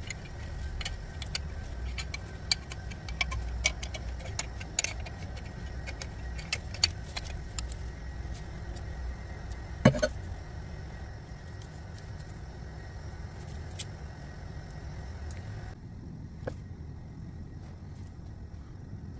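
Steel hand tools clicking and clinking as an open-end spanner turns a puller on the pilot needle bearing of a VW 2.0 TDI dual-mass flywheel, with one loud metallic knock about ten seconds in. A steady low rumble runs underneath.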